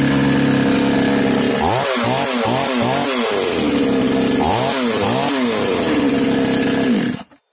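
Daewoo DACS 5820 XT two-stroke chainsaw engine running with its air filter removed: idling, then blipped quickly about five times and later about three more, each rev dropping straight back to idle. With the filter off the throttle releases at once; the clogged air filter had been making it hang open. The engine stops abruptly near the end.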